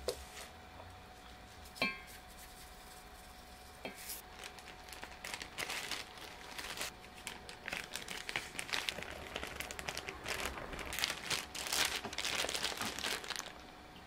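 Plastic zip bag crinkling and rustling as flour is shaken out of it, from about four seconds in until just before the end. Before that, a few sharp knocks and one short ringing clink.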